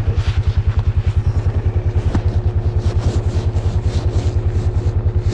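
Small vehicle engine running steadily at low speed, an even rapid thumping of about ten beats a second, with some light rattling over it.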